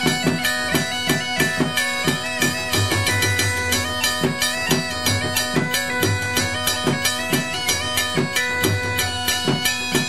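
Background music: a wind-instrument melody over a steady drone, with a regular drum beat.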